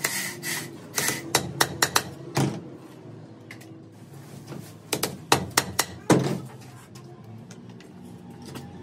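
Fiat 480 tractor brake band and its rivets being handled: a run of sharp metal clicks and knocks, in two bursts with a quieter stretch in the middle.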